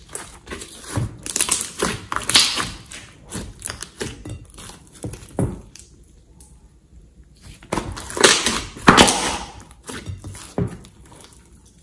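Hands squishing, stretching and pressing slime, giving irregular squelches and pops of trapped air. There is a quieter pause about six seconds in, then a louder run of squelches about two seconds later.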